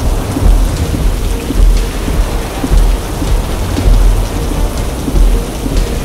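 Heavy rain pelting a car's windshield and roof, heard from inside the moving car, with a low rumble that swells about once a second.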